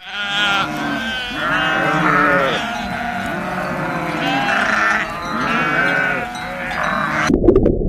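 Several sheep bleating, their quavering calls overlapping one after another. Near the end the bleating cuts off abruptly and gives way to rapid hoofbeats.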